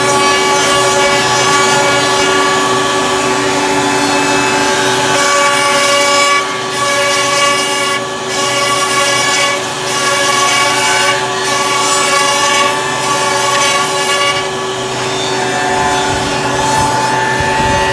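Three-head CNC wood router running, its spindles giving a steady multi-tone whine, with brief dips in loudness every second or two in the middle stretch.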